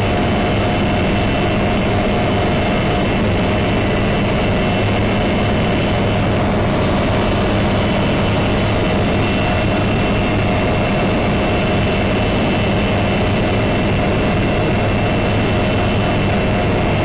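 Loud, steady machine noise: a constant engine-like hum with several held tones over a dense rushing noise, unchanging throughout.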